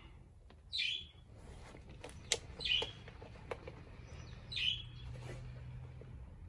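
A bird outside gives a short chirping call three times, about two seconds apart. In between come a few sharp clicks as rubber turf pellets are knocked out of a soccer cleat.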